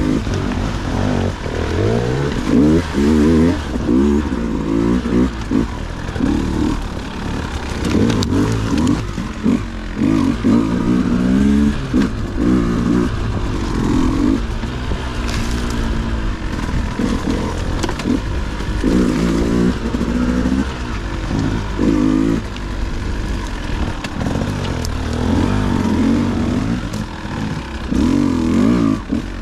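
Dirt bike engine revving up and falling back in short bursts over and over as it works through rough ground, with occasional knocks and clatter.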